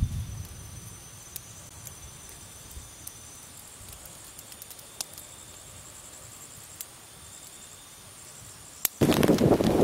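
Night insects calling steadily in high thin tones, with a few sharp pops from a crackling campfire. About nine seconds in, the sound cuts abruptly to loud, heavy rain on a tarp.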